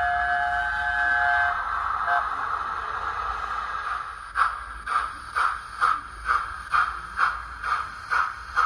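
Steam locomotive sounds from a Zimo sound decoder with a P2 steam sound file, played through the small speaker of a Hornby OO gauge W1 model. A whistle ends about a second and a half in and a hiss of steam follows. From about four seconds in come evenly spaced exhaust chuffs, about two a second, as the model sets off.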